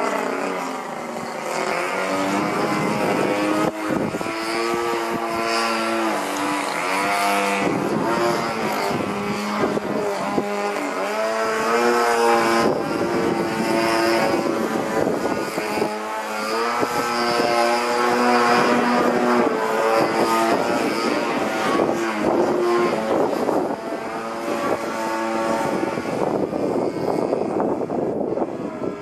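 A CRRC 26cc single-cylinder two-stroke gas engine driving the propeller of a Katana 63-inch RC aerobatic airplane in flight, its pitch rising and falling again and again as the plane manoeuvres.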